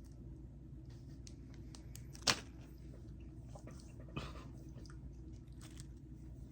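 A person chewing a snack, with scattered small mouth clicks and one sharp click about two seconds in, over a steady low hum.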